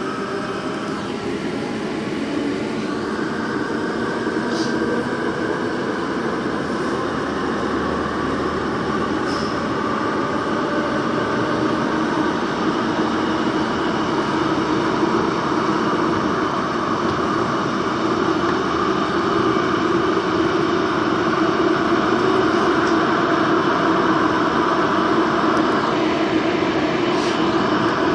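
Daejeon Metro Line 1 subway train running through a tunnel, heard from on board: a steady rumble of wheels on rail with a droning hum, growing gradually louder.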